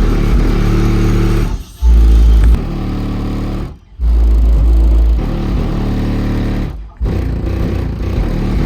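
Bass-heavy music played loud through a car's sound system, with heavy deep bass hits and short breaks about every two to three seconds.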